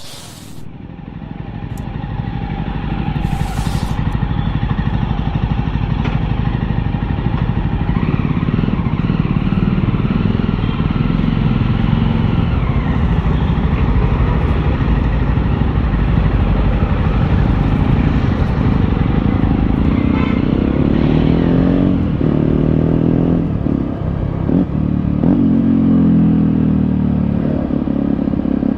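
Jawa 42 BS6 motorcycle's single-cylinder engine running as the bike rides, recorded onboard. The revs rise and fall in steps through the gears in the second half.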